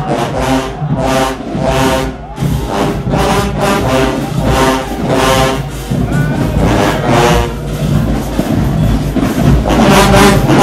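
Marching band brass playing a rhythmic passage, with sousaphones carrying a heavy bass line.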